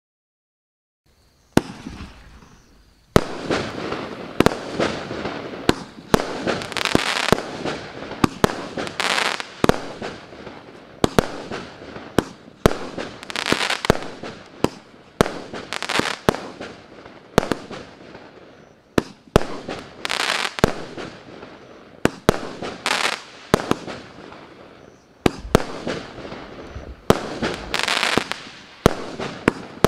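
Maxsem SHOW MC107 firework cake, a 36-shot battery of 20 mm (0.8-inch) tubes, firing shot after shot, starting about a second and a half in. Sharp launch reports and bursts come one or two a second, with crackling from the crackling-chrysanthemum effects in between.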